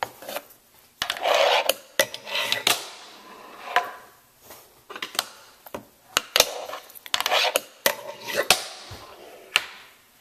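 Fingerboard wheels rolling on a hard tabletop in short rasping runs, broken by a dozen or so sharp clacks as the little board snaps and lands.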